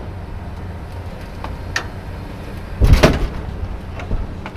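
Steady low engine rumble, with a couple of light clicks and a loud clattering bang about three seconds in, then a smaller knock about a second later.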